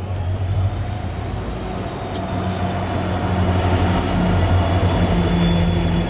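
Passenger train pulling into a station, its wheels or brakes giving a steady high-pitched squeal over the low rumble and hum of the train, growing louder as it comes in.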